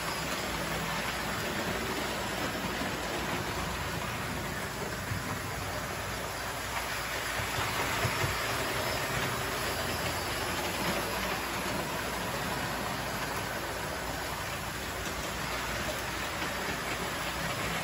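Several American Flyer and Lionel model trains running around a layout at once: a steady, even rolling noise of metal wheels on the three-rail metal track and the trains' electric motors.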